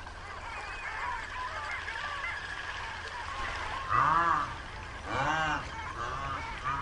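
Loud honking animal calls, two strong ones about a second apart midway and fainter ones after, over a busy chorus of small bird chirps at the start.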